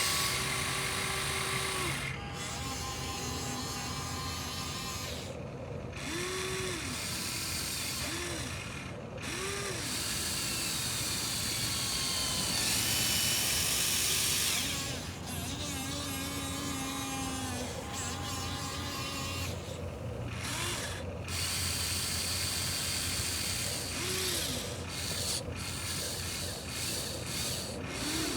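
Small electric motors and plastic gearboxes of remote-control construction models (Huina excavator, dump truck, wheel loader) whining and grinding. The motors start and stop in short spurts, rising and falling in pitch.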